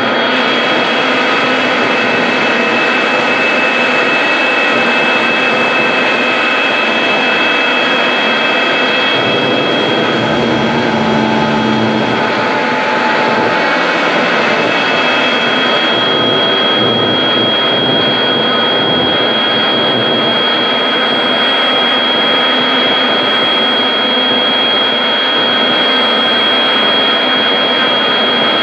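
Amplified live noise music: a loud, dense, unbroken wall of noise with thin sustained high tones held over it, the highest growing stronger about halfway through.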